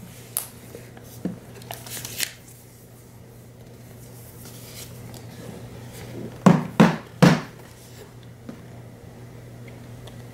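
Cardboard watch packaging handled on a wooden table: a paper tab peeled off with a few short rustles in the first two seconds, then three sharp knocks close together as the white inner box comes out of the orange box. A steady low hum runs underneath.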